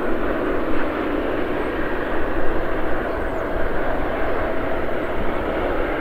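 Boeing 777-300ER's GE90 turbofan engines running at taxi power: a steady jet rush with a faint, even whine held through it.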